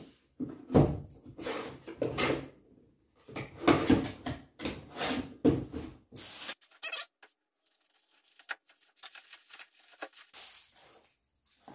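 Gift wrapping and boxes being handled and torn open, in irregular rustling strokes. About halfway through this gives way to the thin, sparse crackle of a shiny plastic gift wrapper being crumpled and pulled apart.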